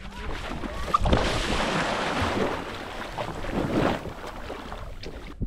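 Water splashing and churning, beginning with a sudden knock about a second in and lasting about three seconds before easing off.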